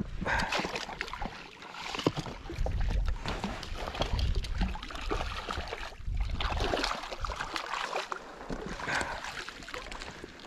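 Water splashing and sloshing as a hooked trout is brought into a landing net beside a float tube. Irregular knocks and rustles of handling close to the microphone run through it.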